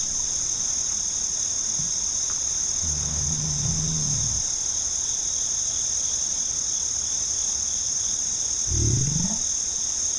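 Steady cricket chorus used as a night ambience bed, with two low zombie-style growls: one about three seconds in and a shorter rising one near the end.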